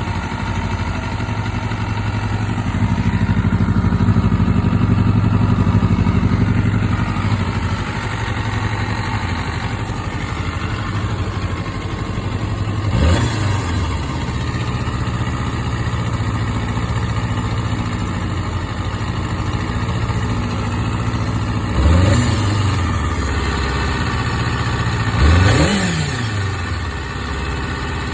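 Honda CBR250RR (MC22) inline-four engine idling steadily, blipped briefly three times: once about halfway, then twice close together near the end. The owner asks whether the engine is making an abnormal noise.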